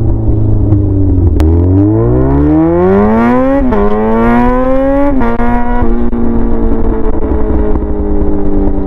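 Yamaha R6 inline-four running with no muffler, straight-piped, accelerating: its pitch climbs steadily, drops sharply twice as it shifts up, then holds steady and eases off slightly near the end.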